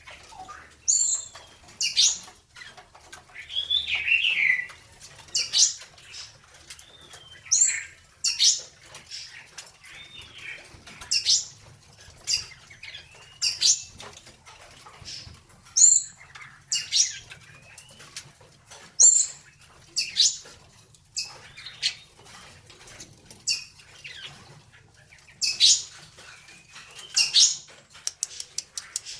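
Caged songbirds giving sharp high chirps every second or two, with a few short warbled phrases. Fluttering wings and small clicks from the birds moving about the cage run underneath.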